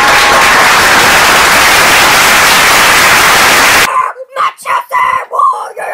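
A loud, harsh burst of even hiss-like noise, like static, lasting about four seconds and cutting off suddenly. High-pitched voices squeal after it.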